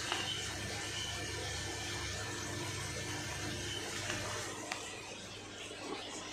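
Aquarium filters and air pumps running, a steady sound of moving water over a low hum that eases off about four seconds in. A few faint clicks come from the plastic fish bags being handled.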